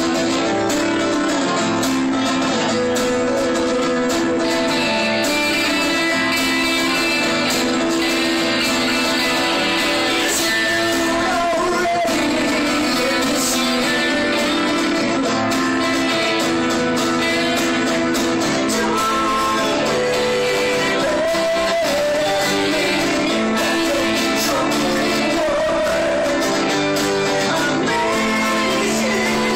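Live band performance: strummed acoustic guitar and electric guitar playing a song, with singing over them.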